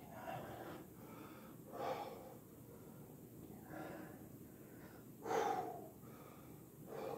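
A man breathing hard, winded from a long set of push-ups: about five heavy breaths spaced a second and a half to two seconds apart, the loudest a little past halfway.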